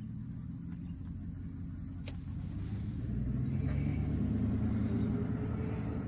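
Car running, heard from inside the cabin: a low engine and road rumble that grows louder from about three seconds in as the car moves off. One sharp click about two seconds in.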